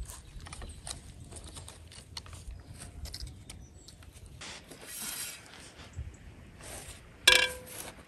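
Sticks of firewood being handled and laid on an iron trivet: a run of light wooden clicks and knocks, a brief rustle about five seconds in, and one sharp, ringing metal clank near the end.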